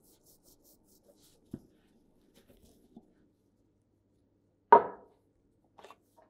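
Metal airgun parts being handled and set down on a wooden workbench: a few light clicks and knocks, then one much louder clack about three-quarters of the way through.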